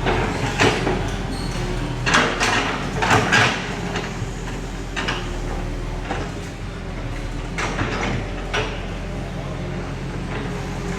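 Bulldozer's diesel engine running steadily under irregular metallic clanks and scrapes, several in the first four seconds and a few more later.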